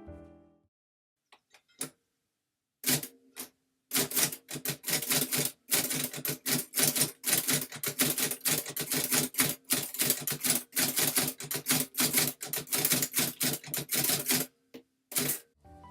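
Continental Silenta noiseless typewriter being typed on, a quick, uneven run of keystroke clacks. Its type bars are pushed toward the platen and slowed before impact, not flung against it. A few faint clicks come first, the steady typing starts about three seconds in, and a single stroke follows near the end.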